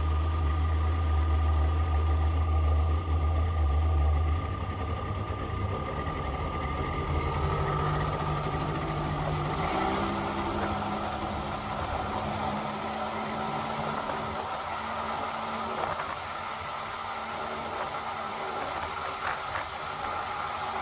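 Motorboat engine running under way, its low note stepping up in pitch about four seconds in and again about ten seconds in as it speeds up, over steady wind and water noise.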